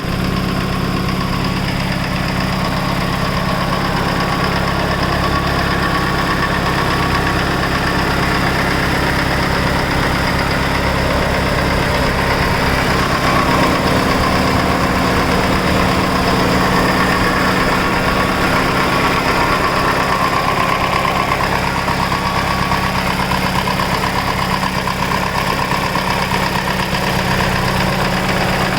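Mitsubishi Lancer Evolution VIII's turbocharged 4G63 inline-four idling steadily with a fast, even ticking from the valvetrain: a lifter tick that persists after a full head rebuild with new GSC zero-tick lifters, springs, valves and seals.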